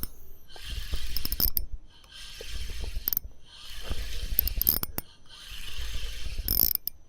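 Fishing reel being wound in with a small fish on the line, a whirring, clicking crank in four spells of about a second or so, each broken by a short pause.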